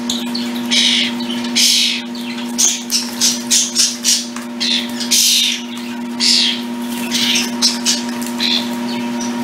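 Young starlings bathing in a shallow tub of water: quick, irregular splashes and wing flutters, several a second, over a steady background hum.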